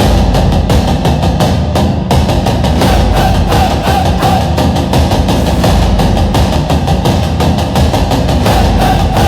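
Tribal-style drumming music: deep drums and sharper wood-like strikes playing a fast, steady rhythm.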